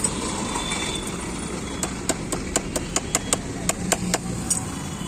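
A run of about a dozen quick, sharp hammer taps on metal, on the broken frame of a child's bicycle being readied for welding, starting about two seconds in and stopping about a second before the end. Steady background noise of street traffic underneath.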